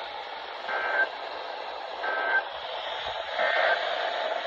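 NOAA Weather Radio SAME end-of-message code: three short, identical digital data bursts about 1.3 seconds apart, over a steady hiss of radio static. The bursts mark the end of the emergency alert broadcast.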